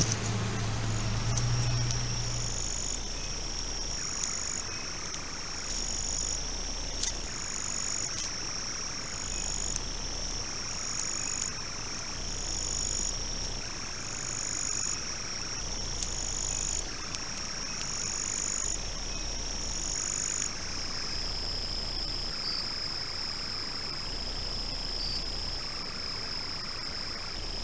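Insects calling in pulses over a steady high-pitched whine, with a few sharp clicks near the middle.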